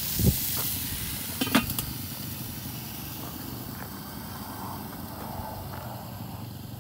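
Chicken sizzling on the grates of a small Weber kettle grill. A knock comes shortly after the start, then a ringing metal clank about a second and a half in as the steel lid is set on the kettle. The sizzle goes on more faintly afterwards.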